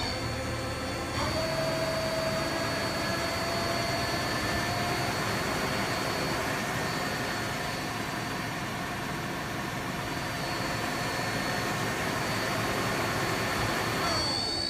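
Mazak QT25L CNC lathe running: a steady mechanical hiss with a high whine, stepping up about a second in, with a tone that slowly climbs in pitch, then winding down near the end.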